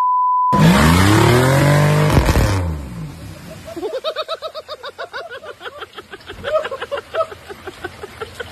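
A steady 1 kHz test tone cuts off half a second in. A pickup truck's engine then revs up and back down for about two seconds, its wheels spinning and spraying mud. After that come people's voices.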